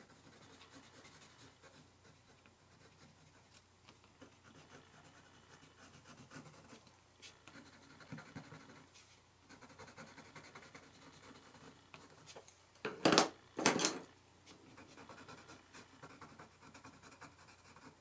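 Colored pencil scratching softly on textured watercolor paper in short strokes. About two-thirds of the way through come two short, louder sounds a moment apart.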